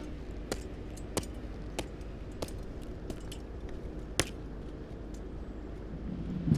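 Boot heels of a soldier marching on brick paving: sharp clicks about every 0.6 seconds over a low outdoor rumble, with one louder click about four seconds in.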